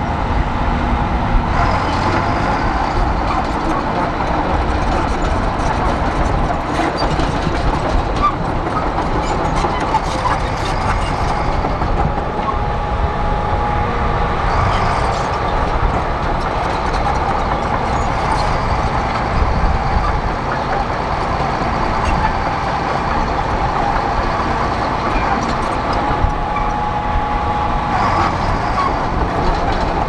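Crawler bulldozer's diesel engine running steadily under load, with repeated metallic clanking from its steel tracks as it pushes and spreads dirt.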